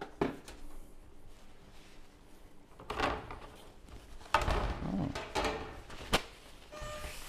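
Handling noises of a plastic pet carrier and a stainless steel exam table: a few sharp knocks, the loudest just past four seconds and another just past six, with rustling and shuffling between. A short electronic tone sounds near the end.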